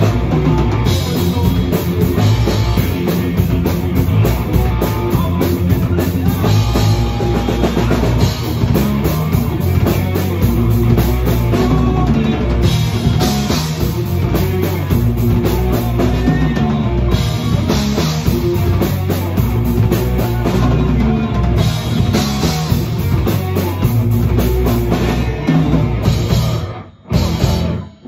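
Loud rock music driven by a drum kit, with guitar. It drops out abruptly for a moment near the end.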